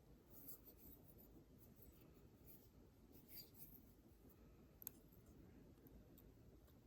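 Very faint scraping and light ticking of a small metal tool working at a tiny C-clip on a watch button stem, with one sharp click about five seconds in.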